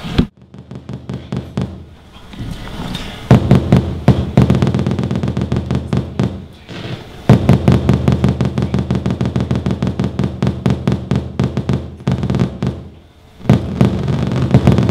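Electronic music from homemade synthesizers and sensors: low droning tones under fast, dense clicking pulses. It swells up loudly about three seconds in, breaks off briefly and comes back about seven seconds in, then dips near the end before resuming.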